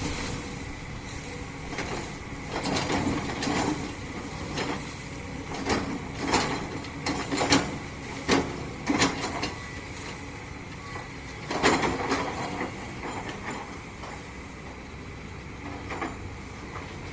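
Excavator running with a steady low rumble, over which come irregular metallic clanks and knocks, a cluster of them in the middle and a loud one a little before the last third.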